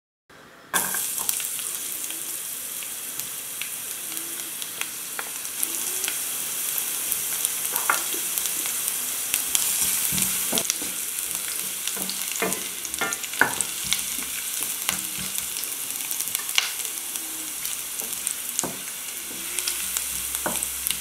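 Chopped garlic sizzling in hot rapeseed oil in a stainless steel pan: a steady hiss that starts suddenly about a second in, with many small crackles and pops. A wooden spatula stirs it now and then.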